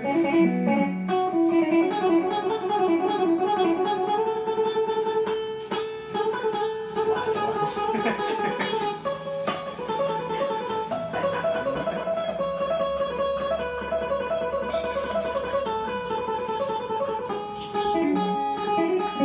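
1981 Fender Stratocaster electric guitar played through an amplifier: quick single-note picked melody lines in the style of the Isan phin lute, with some notes held steady underneath.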